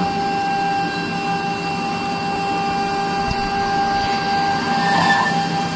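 High-speed CNC router spindle running with a steady whine while its pointed bit cuts into a thick 20 mm cast acrylic sheet.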